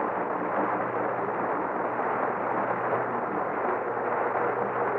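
Studio audience applauding steadily, with a few faint held notes of the orchestra underneath, heard through an old radio broadcast recording that lacks the high end.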